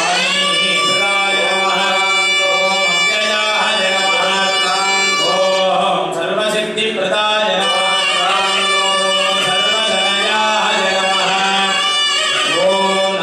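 Hindu devotional music: a winding melody line over a steady, unbroken drone.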